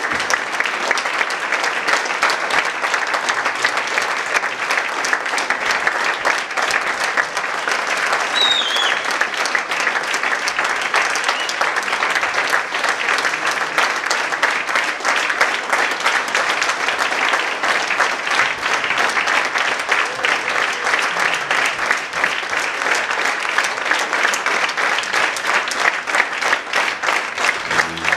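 Audience applauding steadily: a dense mass of many hands clapping.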